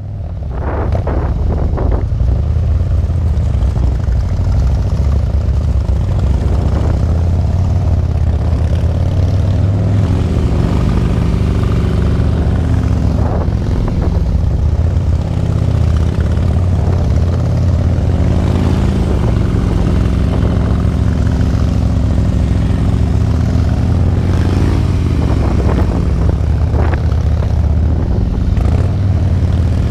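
Harley-Davidson Limited's V-twin engine running at low speed, its pitch rising and falling with the throttle, picked up by a camera mounted on the bike's luggage rack.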